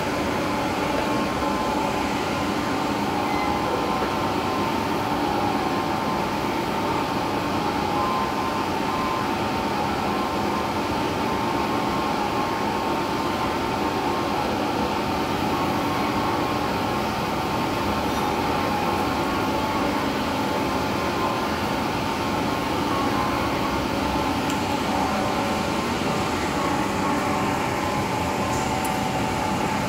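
Large heavy-duty lathe running with a big grooved steel roll in it: a steady machine hum with several held tones that does not change.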